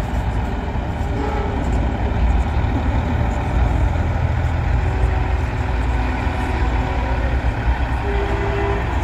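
Diesel semi-trucks rumbling past in a slow convoy, a steady deep engine drone, with a few short held tones and voices over it.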